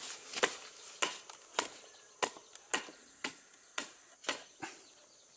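A bamboo cooking tube knocked down again and again, about two sharp taps a second, to shake out the fish cooked inside it; the tapping stops shortly before the end.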